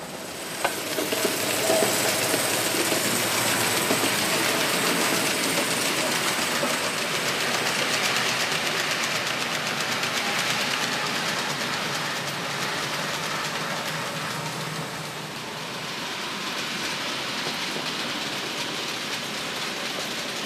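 HO-scale Märklin model freight train of hopper wagons rolling along the track, a steady clattering rumble of metal wheels on rails. It swells after a sharp click just under a second in, is loudest for the first half and eases off a little in the second half.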